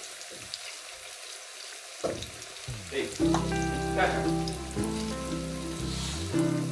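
Ripe plantain slices sizzling in hot oil in a frying pan, a steady frying hiss. Background music comes in about three seconds in.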